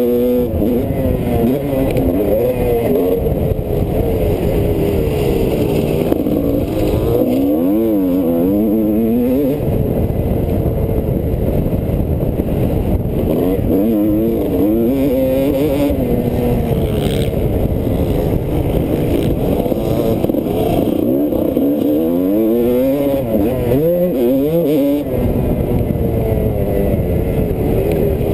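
Motocross bike engine heard from the rider's own bike while racing, its pitch climbing and falling back again and again as the throttle is opened and closed through the corners and straights, over a steady low rumble.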